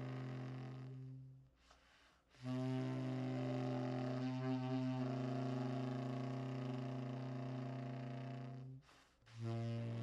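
Tenor saxophone holding long, low notes. The first breaks off about a second and a half in; after a short gap a second note is held steady for about six seconds; after another brief breath a third long low note begins near the end.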